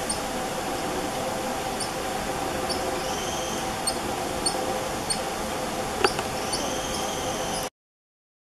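Black-fronted titi monkey giving a string of short, high-pitched B-calls, about one a second: its alarm sequence to a predator on the ground. A steady forest hum runs underneath, a sharp click comes about six seconds in, and the sound cuts off abruptly near the end.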